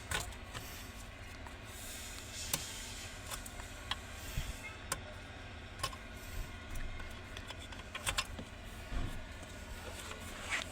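Scattered sharp clicks and small plastic knocks of wiring connectors being unplugged and handled under a car's steering column, over a steady low hum.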